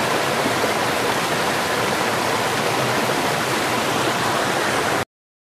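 A small stream spilling over rocks in a low cascade: a steady rush of water that cuts off suddenly about five seconds in.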